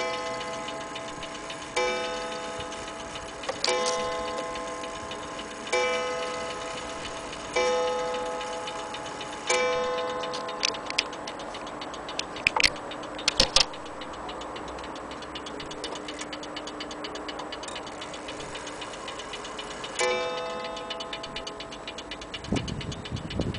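Ansonia metal-case mantel clock striking the hour: six evenly spaced strikes about two seconds apart, each ringing out and fading. Then the clock ticks steadily, broken by a few sharp clicks from handling, and one more strike rings out near the end.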